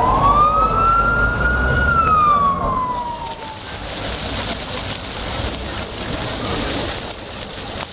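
An emergency-vehicle siren wails over street traffic, one slow rise and fall in pitch that dies away about three seconds in. Then comes the steady splashing of a plaza fountain's ground-level water jets falling onto wet paving.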